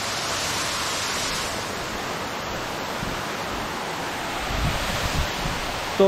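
Waterfall: water falling straight down a rock drop with a steady rushing noise.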